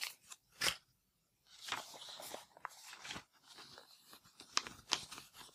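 Crayon tip of a Kinder Mix Art toy figure scribbled hard across paper: irregular scratchy strokes, with a few sharp clicks.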